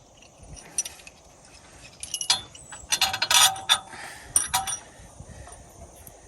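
Metal parts of a new sway bar link clinking and jingling together as they are fitted by hand. There are a few clinks about two seconds in, a busy cluster around three seconds, and a couple more near four and a half seconds.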